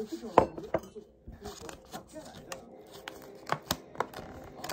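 Thin clear plastic sandwich container crackling and clicking as it is handled and pried open, a string of sharp plastic snaps, the loudest about half a second in.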